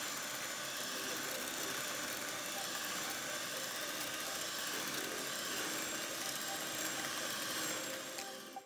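Electric hand mixer running steadily, its two wire beaters whipping a thick cream mixture in a stainless steel bowl.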